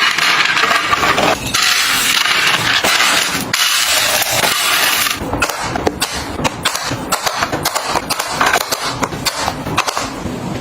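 Household handling sounds: a loud hissing rustle for the first five seconds, then a quick run of clicks and taps, as items are handled and put away.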